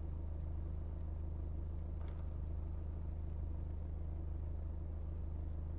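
Steady low hum of a car engine idling, heard from inside the cabin, with a faint click about two seconds in.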